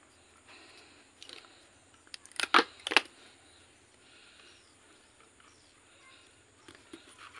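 Hands working the bare roots of a ficus bonsai: faint rustling with a few crisp clicks, then two loud sharp cracks about half a second apart, a little over two seconds in.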